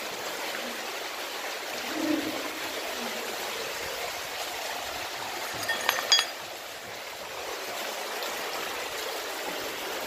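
Shallow stream of water running steadily over stones along the tunnel floor. About six seconds in, a few short, sharp metallic clinks from a small rusted iron plate.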